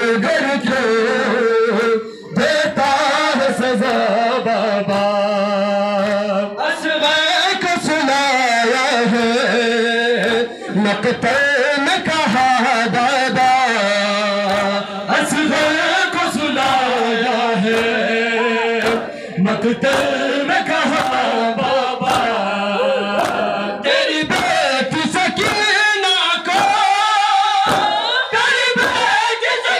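A noha, a Shia lament, sung by voices, with sharp slaps of matam chest-beating between the lines that grow steady and more frequent in the last few seconds.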